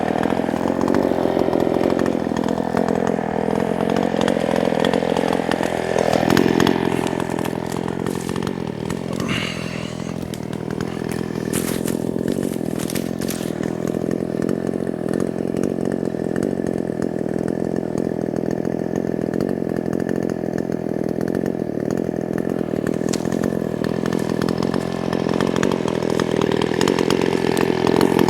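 Small two-stroke chainsaw running at high speed, cutting into a pine. Its engine pitch wavers for the first few seconds, dips about six seconds in, then holds steady and high before rising again near the end.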